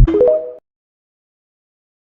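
Short electronic musical sting: a loud low tone followed by a few quick notes stepping up in pitch, cutting off about half a second in.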